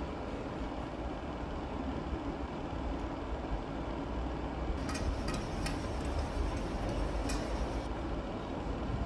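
Kitchen knife chopping on a plastic cutting board: a few sharp taps between about five and seven and a half seconds in, over a steady low background rumble.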